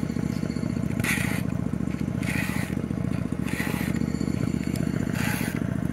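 Round rat-tail file scraping across chainsaw chain cutters in short strokes, about one a second, sharpening the chain. Under it an engine runs steadily.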